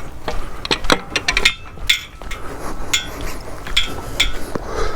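Irregular metallic clicks and clinks from a steering wheel lock and its keys being handled.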